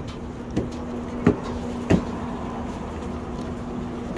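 A steady low hum with three sharp knocks about two-thirds of a second apart near the start; the last two knocks are the loudest.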